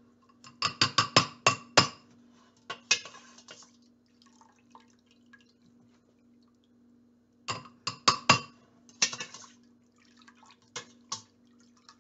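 A fine-mesh metal strainer clinks and knocks against a glass blender jar and a stainless pot in two rounds of quick ringing taps, about half a second in and again about seven and a half seconds in. Broth drips and splashes after each round as the strainer is dipped into and lifted from the soup. A low steady hum runs underneath.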